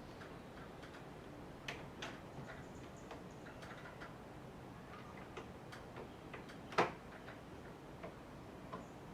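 Irregular light clicks and taps over a faint steady hiss, with one sharper click about seven seconds in.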